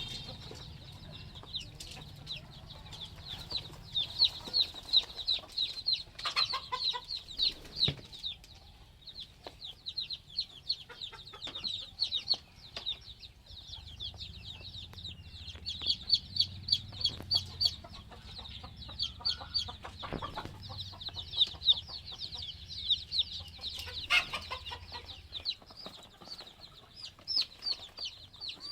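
A flock of three-day-old chicks peeping continuously, with many short high-pitched cheeps overlapping. A few knocks break in, over a low hum.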